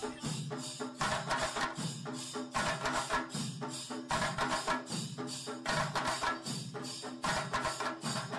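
Background music with a quick, steady percussion beat.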